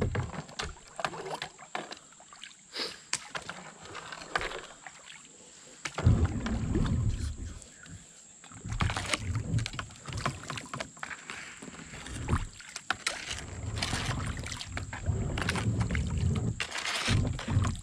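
A plastic kayak being paddled and turned in shallow river water: paddle splashes and drips, with irregular clicks and knocks against the hull. A heavier low rumble comes and goes from about six seconds in.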